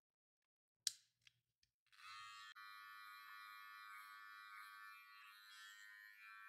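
A plastic guard snaps onto a gold cordless hair clipper with one sharp click and a few lighter clicks. About two seconds in, the clipper switches on and runs with a steady electric buzz as it cuts the hair on the side of the head.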